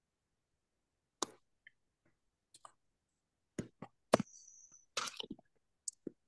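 A scattered series of small clicks and knocks picked up by an open microphone on a video call, the loudest about four seconds in, followed by a brief high, thin tone lasting about half a second.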